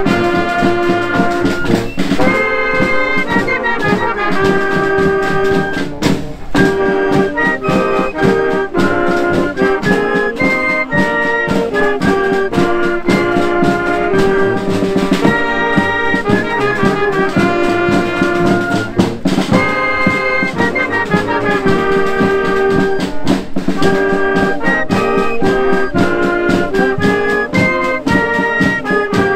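School marching band playing a march: brass instruments carry the melody in held notes over a steady drum beat.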